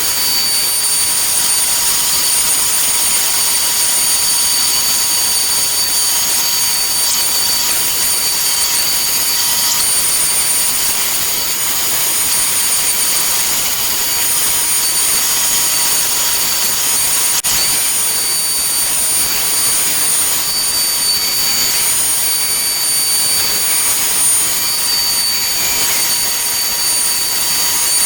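CNC router spindle running steadily while cutting out a sign, a high-pitched whine over a steady rushing noise.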